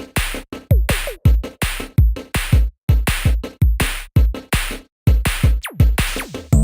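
Electronic background music: a drum-machine beat of deep kick drums whose pitch drops and sharp snare-like hits in a fast, choppy pattern.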